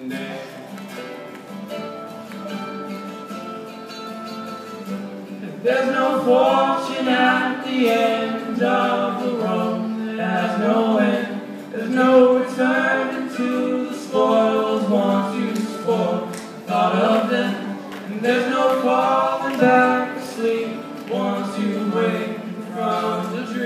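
Acoustic guitar played with male singing. The opening few seconds are softer, and from about six seconds in the singing comes in louder and carries through to the end.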